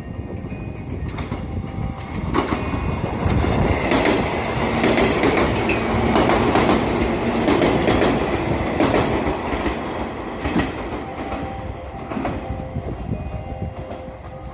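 JR Shikoku 113-series electric train running on the rails, its wheels clicking over rail joints. It grows louder to a peak in the middle and then fades.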